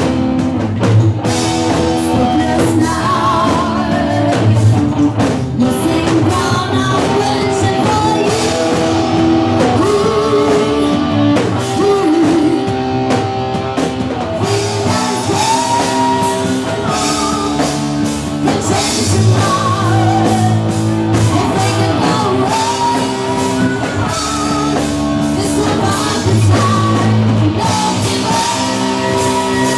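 Live rock band playing: a woman singing lead over electric guitar, bass guitar and a drum kit, loud and steady.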